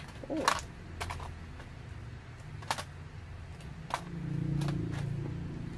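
Hands tearing rice cake into small pieces over an aluminium foil tray, with about five sharp clicks and crackles of foil and packaging spread through, and a faint low hum for a second or so near the end.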